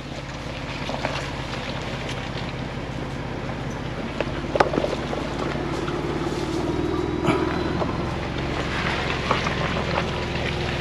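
Ford Bronco engine running at low revs as it crawls over a rutted dirt trail, with a sharp knock a little under halfway through and the engine note picking up a little after the middle.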